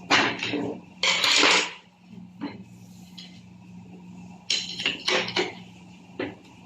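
Steel gearbox parts and hand tools clinking, knocking and scraping against each other during transmission disassembly, with a longer scrape about a second in and a cluster of clinks near the middle, over a steady low hum.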